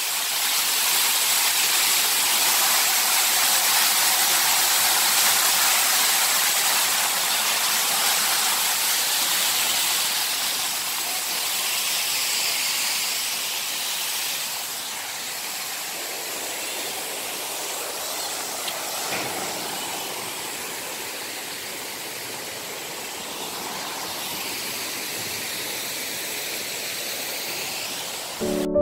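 Fountain water falling and splashing into its pool: a steady rushing hiss that grows somewhat quieter about halfway through.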